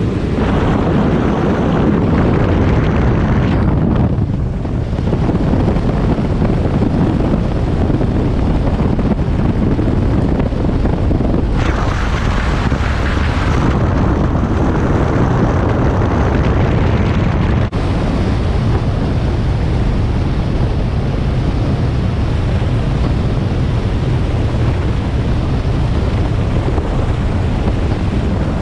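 Wind buffeting the microphone over the steady rush of a Haynie 23 SuperCat bay boat running across open water. A hissier gust comes about twelve seconds in.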